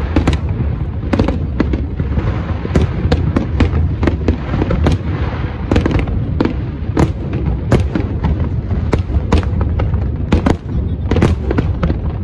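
Fireworks display: a dense, irregular run of sharp bangs and pops, several a second, over a steady low rumble, with a spell of hissing crackle from about two to six seconds in.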